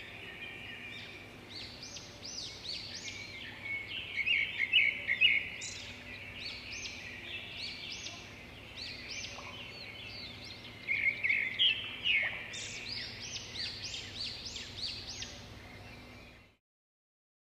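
Birds chirping and singing, many quick high chirps and trills overlapping; the sound cuts off suddenly near the end.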